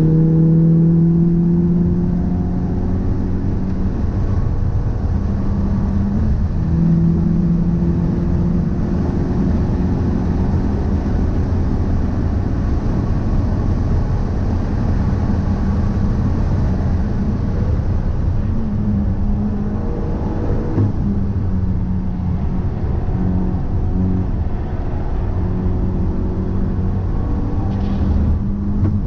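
Car driving along: steady engine and road rumble with a humming tone that shifts slightly in pitch now and then. This is a drive being recorded to check for an abnormal noise that the owner suspects comes from a drive shaft or a wheel hub bearing.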